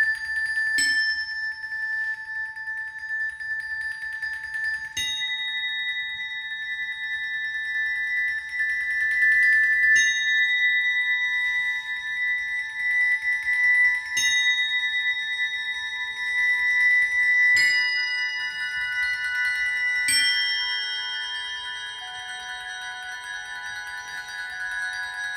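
Slow mallet-percussion music: single metallic notes struck about every three to five seconds, six in all, each ringing on for several seconds so the tones overlap into a held chord.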